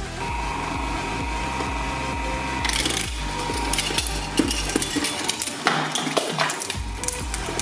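Electronic dance music with a pulsing bass. About three seconds in, the crunching and cracking of die-cast metal toy cars being chewed apart by a twin-shaft shredder's blades starts and keeps going.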